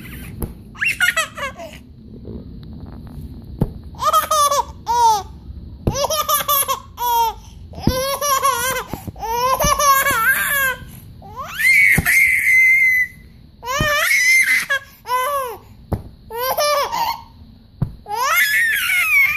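A baby laughing and giggling in repeated high-pitched bouts, with a longer held squeal about twelve seconds in.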